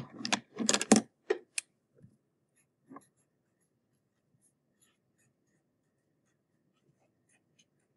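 Felt-tip marker writing on a paper worksheet: a quick run of strokes in the first second and a half, a couple of faint strokes a second or two later, then near silence.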